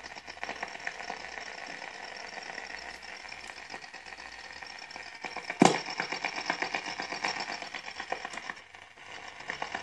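VEF Spidola 230-1 radio's speaker hissing and crackling with static between stations as it is tuned by hand, with one sharp click about halfway through.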